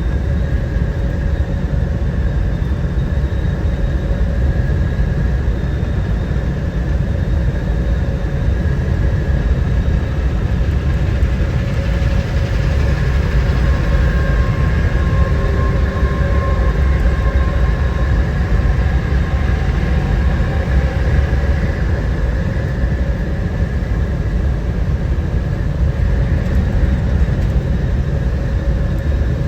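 Road and engine noise inside a car driving at highway speed: a steady low rumble with a faint, even hum above it.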